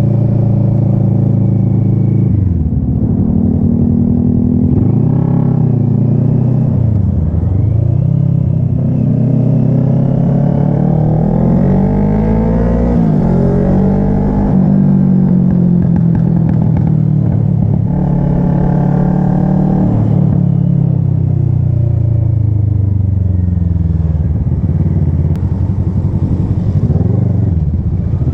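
Kawasaki ER-6n's 649 cc parallel-twin engine running on the move, its revs rising and falling again and again.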